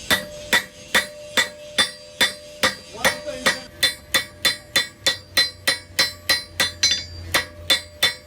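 Blacksmith's hammer striking on an anvil in a steady rhythm of about three blows a second, each blow ringing.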